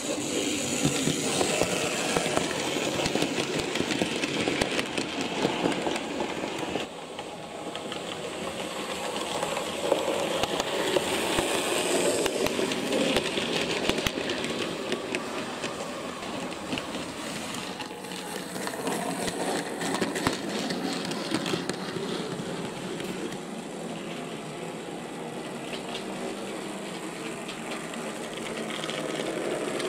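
Model diesel locomotives running on a model railway track: small electric motors whirring and wheels clicking and rattling along the rails, with freight wagons in tow. It is louder in the first few seconds, then drops a step about seven seconds in.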